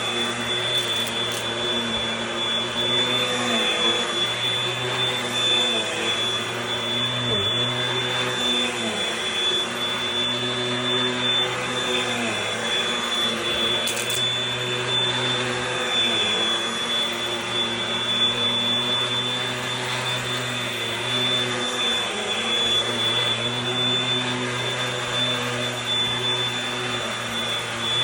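Eureka AirSpeed Gold upright vacuum cleaner running steadily, with a high whine held throughout and its motor note wavering slightly now and then.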